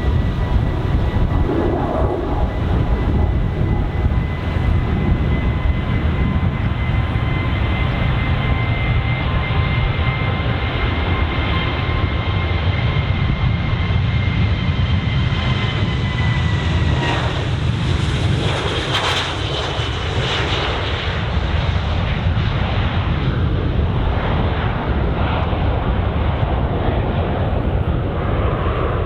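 Boeing 737-700's twin CFM56-7B turbofan engines at takeoff power: a loud, steady low rumble with a high fan whine that drops in pitch about 17 seconds in as the jet passes.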